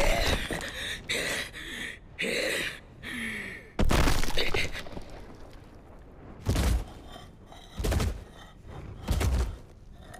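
Anime sound effects: a woman gasping for breath in short ragged bursts, then a sudden loud crash that rings away, followed by slow heavy thuds about every second and a half.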